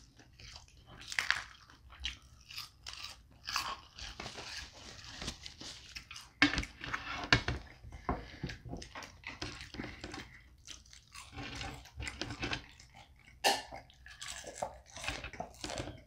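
Close-miked eating of flatbread pizza and curly fries: irregular crunching bites and chewing.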